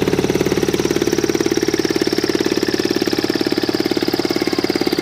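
Ultralight aircraft engine running steadily under load with its propeller, a fast, even pulsing beat. The owner says the propeller is too large for the engine, so it cannot spin it properly and gives little thrust.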